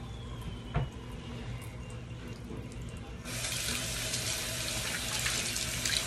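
Bathroom tap running into a sink, with a single knock under a second in. About three seconds in the splashing gets much louder and brighter as a rubbery stretchy toy and hand are held under the stream.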